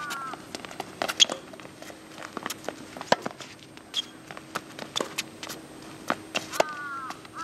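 Tennis rally on a hard court: sharp racket-on-ball hits and ball bounces at irregular intervals, with footsteps and shoe scuffs.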